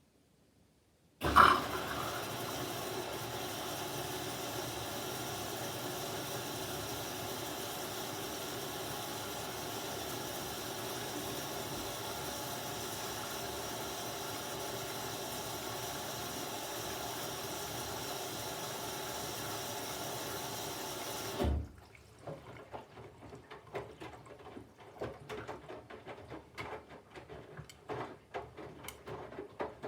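Candy GVF4 washing machine's water inlet valve opening with a click and water rushing steadily into the drum for about twenty seconds, then shutting off abruptly, part of the load-weighing stage. Afterwards faint irregular knocks and ticks from inside the machine.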